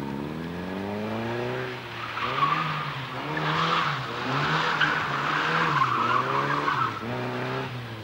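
A small hatchback rally car's engine revs up and down repeatedly as it is driven hard through tight turns. From about two seconds in its tyres squeal and skid.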